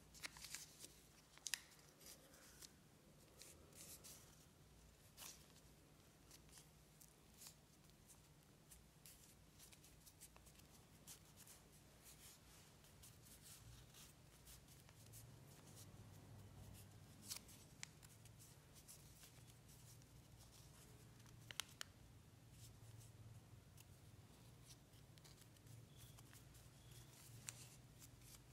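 Square origami paper being folded and creased by hand: faint, scattered crinkles and crackles of paper, a few of them sharper, over a low steady hum.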